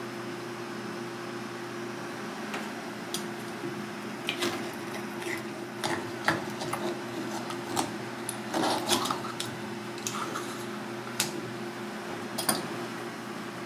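A knife clicking and scraping against turban shells and a cutting board as the snail meat is pried out and cut, in irregular sharp taps that start a couple of seconds in. A steady hum runs underneath.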